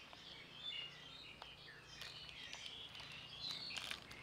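Small birds chirping in the background, many short scattered chirps, with a few faint clicks.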